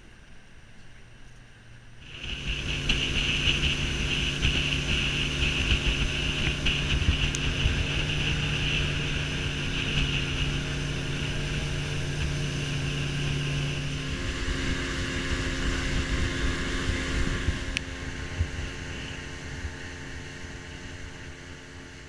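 Outboard motor of a small open boat running steadily under way, with wind buffeting the microphone. It starts suddenly about two seconds in and eases off over the last few seconds.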